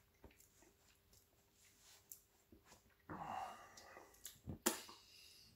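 Quiet handling of a cloth tea towel as hands and mouth are wiped, with a short breathy exhale about three seconds in. A few sharp clicks follow near the end, the loudest a little over a second before the end.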